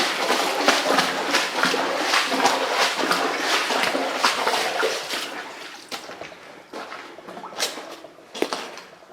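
Feet splashing and sloshing through shallow water in a cave passage, a quick run of splashes that dies down about five seconds in, leaving a few single splashes near the end.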